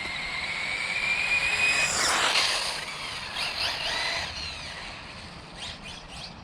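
Electric motor of a Losi 8ight-E RC buggy whining under throttle, its pitch climbing slowly for about two seconds. A burst of rushing noise follows, then shorter whines that rise and fall as the car accelerates and lets off.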